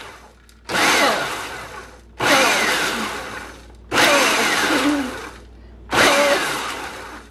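Food processor pulsed four times on chopped pecans: each pulse starts suddenly and loudly, then fades over about a second with a falling whine as the motor winds down.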